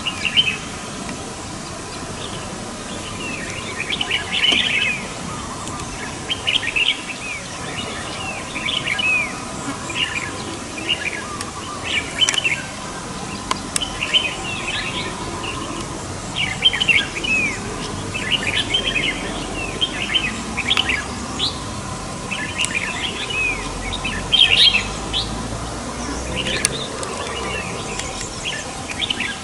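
Several red-whiskered bulbuls singing and calling: short, bubbly chirping phrases that come every second or so, one bird answering another.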